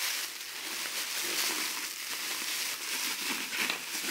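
Thin plastic shopping bag crinkling and rustling as it is handled and pushed into the neck of a plastic bottle, with irregular crackles.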